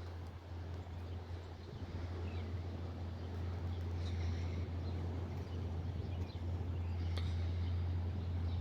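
Heavy construction machine's engine running steadily with a low, even drone that grows slightly louder toward the end.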